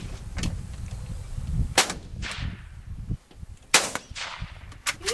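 Two shots from a scoped rifle, about two seconds apart, each followed by a short fading echo.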